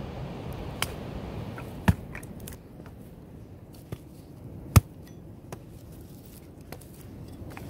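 Hatchet chopping dry sticks: a few sharp strikes, the two loudest about two and five seconds in, with lighter knocks of wood between them.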